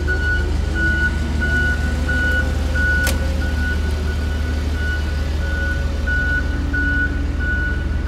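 Rubber-tyred road roller's diesel engine running steadily while its backup alarm beeps in a regular high tone, a little under twice a second. A single sharp click about three seconds in.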